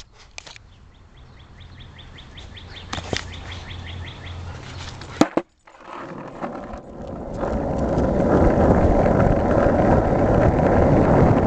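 Skateboard wheels rolling on asphalt, quiet at first, then building to a loud, steady rumble from about seven seconds in as the board picks up speed. A sharp clack comes about five seconds in.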